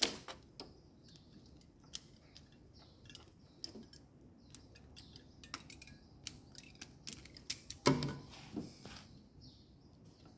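Scattered small clicks and taps of hand tools and wires being handled during wiring repair work, with a louder knock about eight seconds in.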